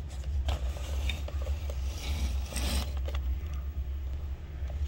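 Handling noises: a few scrapes and knocks as items are moved about, the loudest a short scraping rustle about two and a half seconds in, over a steady low hum.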